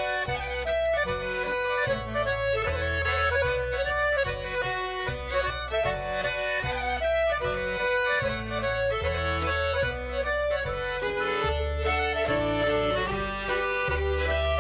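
Background music: a folk-style tune with accordion and fiddle over a steady, stepping bass line.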